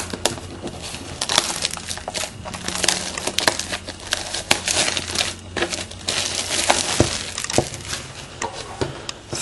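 Clear plastic shrink-wrap being torn off a cardboard trading-card box and crumpled in the hand, with a dense run of irregular crackles and crinkles.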